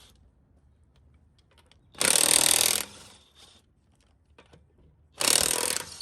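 Power tool run in two short bursts of under a second each, about three seconds apart, during a brake job.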